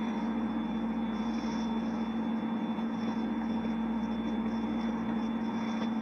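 Steady room tone: a constant low hum with an even hiss underneath, no speech.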